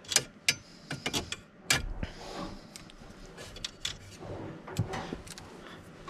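Ratchet wrench with a 10 mm socket clicking in short, uneven strokes as it loosens a bolt on a steering column's metal clamshell. After about two seconds it gives way to quieter scattered knocks and rattles of the tool and metal parts being handled.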